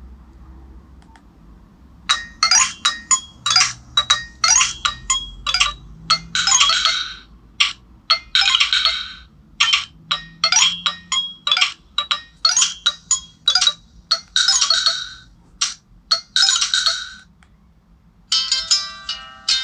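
Nokia 105 (2013) mobile phone playing one of its original ringtones: a quick run of short, high notes with brief gaps, some held a little longer, starting about two seconds in and stopping shortly before the end. Near the end the next ringtone begins.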